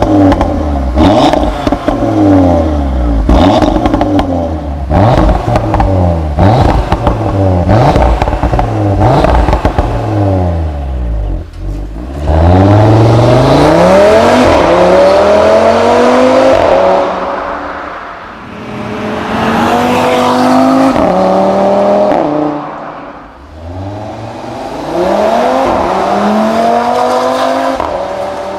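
Audi RS3's turbocharged five-cylinder engine revved again and again in quick blips for about the first ten seconds, then pulled through three long climbs in pitch, each one falling away before the next.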